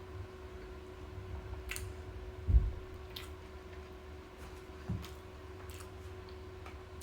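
Person chewing a Big Mac close to the microphone: scattered wet mouth clicks, with a dull thump about two and a half seconds in and a softer one near five seconds, over a steady faint hum.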